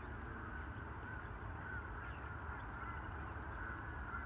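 Faint, steady hum of the E-flite T-28 Trojan's electric motor and three-bladed propeller flying at a distance, over a steady low rumble.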